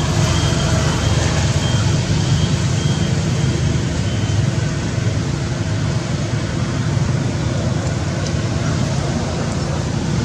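Steady, loud low rumble of background noise with no clear pitch and no distinct events.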